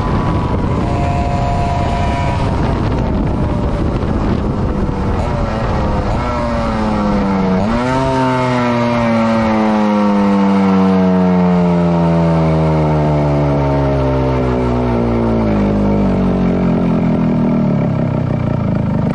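TVS Suzuki Supra SS motorcycle engine running: after a few seconds of rough steady running its pitch climbs to a peak about eight seconds in, then falls slowly for about ten seconds as the revs drop, and picks up again near the end.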